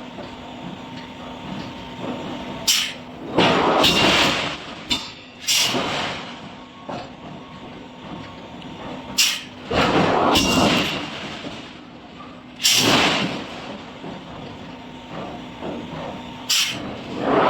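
Forge shop machinery: heavy metal strikes and bursts of hissing air, each lasting about a second, come every few seconds over a steady machine hum.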